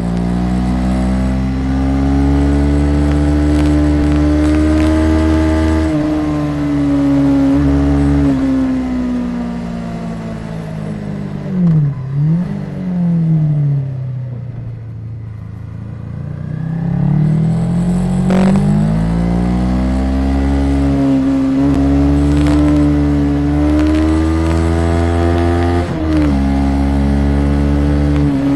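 Honda CB500 parallel-twin engine under way, its revs rising and falling through gear changes; around the middle it eases off and drops low with quick rev blips on downshifts, then pulls up through the revs again. A low rumble underlies it, and a few short crackles come from a poorly set up external recorder.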